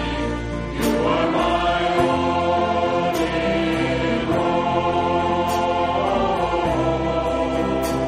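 Many voices singing a hymn together, with steady, held low notes underneath.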